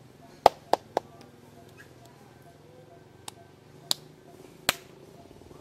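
A series of sharp clicks or taps: three in quick succession about half a second in, then three more spaced out over the following few seconds.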